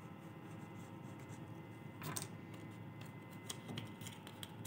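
Faint rustling of a thin paper strip being handled and rolled between the fingers, with a few soft ticks and taps, one a little louder about two seconds in.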